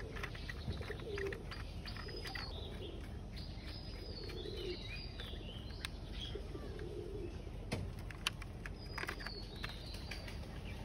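Birds chirping with repeated soft cooing in the background, and a few light clicks and taps from handling the plastic toy train and its screws, the loudest of them near the end.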